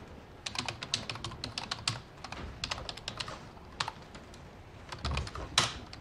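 Typing on a computer keyboard: a quick run of keystrokes for about three seconds, then a few scattered key presses, one louder near the end.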